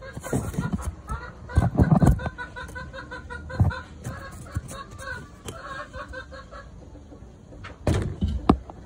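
Chicken clucking in a steady run of short repeated notes, several a second, fading out after about six seconds. Loud low thumps come about two seconds in and again near the end.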